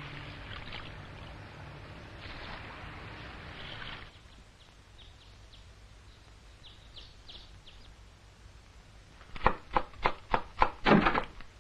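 Water lapping, then a few short birdsong chirps, then a knife chopping on a cutting board in quick, uneven strokes from about three-quarters of the way in; the chopping is the loudest sound.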